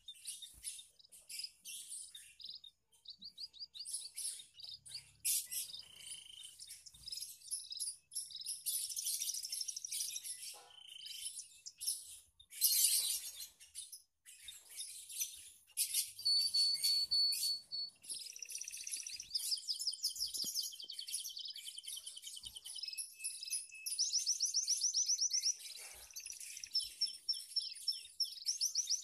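Several small aviary finches chirping and calling over one another, with quick high-pitched chirps and fast trilled runs of repeated notes. A loud burst of chirping comes near the middle.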